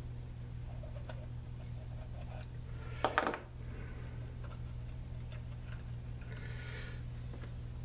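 Small faint clicks and taps from hands handling wires and a soldering iron in a metal power-supply chassis, over a steady low hum. A brief louder rustle comes about three seconds in.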